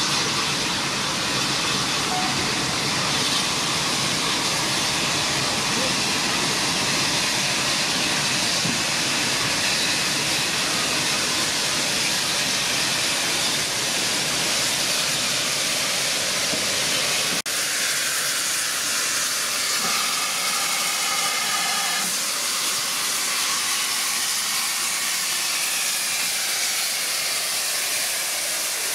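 Steam locomotive letting off steam: a loud, steady hiss that barely changes, with a brief dropout about 17 seconds in.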